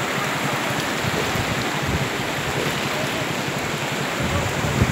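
Steady rushing of a river in flood, fast brown water churning over its bed, with a few low bumps.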